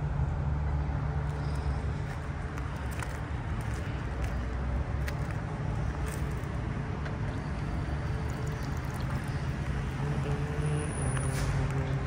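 Steady low rumble of city traffic, with a few faint clicks.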